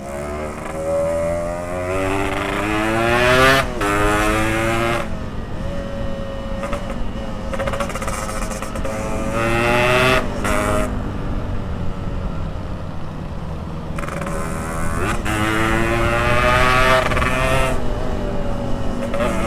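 Yamaha RX-King's single-cylinder two-stroke engine through a PK3 expansion-chamber exhaust, ridden hard. The pitch climbs under throttle, then drops at the gear changes, about three times, with a steady rush of wind underneath.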